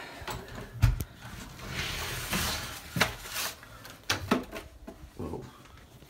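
Footsteps and handling of a front door as it is opened: a few separate knocks and thumps, the strongest just under a second in, with a stretch of rustling noise about two to three seconds in.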